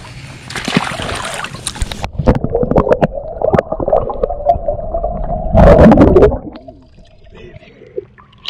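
Water gurgling and bubbling around a camera microphone that is dipped under the surface for an underwater fish release. About two seconds in, the sound turns muffled, with clicking bubbles. A loud churning surge of water comes just before six seconds, then it goes quiet.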